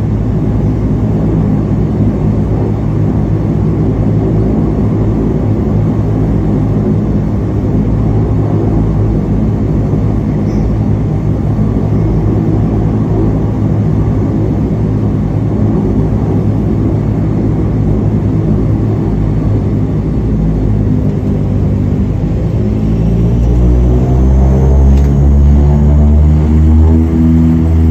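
Dash 8 turboprop engine and propeller, heard from the cabin seat beside it, running steadily at low power. About 23 seconds in, the pitch rises and the sound grows louder as power comes up for the takeoff roll.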